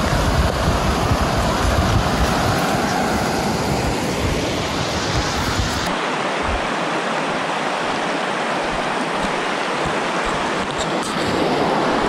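River water rushing over rapids, a steady hiss, with wind rumbling on the microphone. About six seconds in the rumble drops away abruptly and a steadier rush of water goes on.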